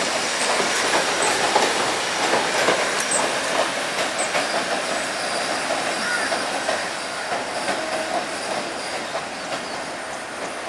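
Passenger train carriages rolling over yard points and crossings: rapid clattering of wheels on rail joints and switch frogs, with brief wheel squeals in the middle, fading slowly as the train moves away.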